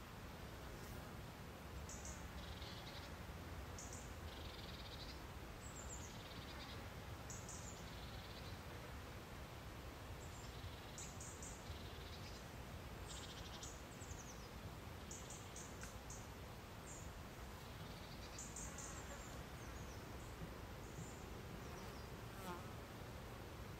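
Faint outdoor ambience of insects: short, high-pitched chirps every second or two over a steady low hiss.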